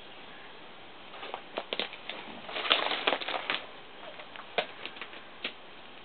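Irregular clicks, scuffs and knocks of someone climbing up into the cab of an old logging truck. They bunch together about halfway through, and a few single sharp clicks come near the end.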